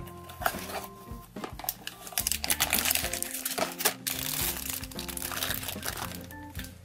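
Foil and plastic blind-box packaging crinkling as it is torn open and handled, the crinkle growing denser about two seconds in, over background music with held notes.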